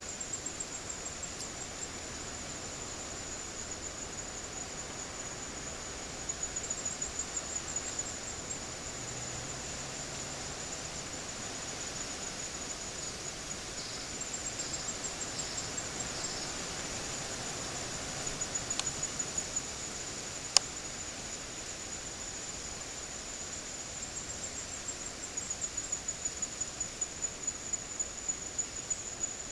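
Insects trill without a break at a high pitch, swelling into pulses of about five a second in several stretches. A single sharp click comes a little past two-thirds of the way through.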